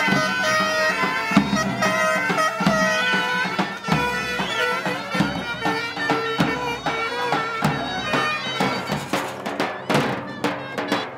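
Traditional Turkish folk music: a reed pipe plays a sustained melody over the strokes of a davul bass drum, with the drumbeats growing denser near the end.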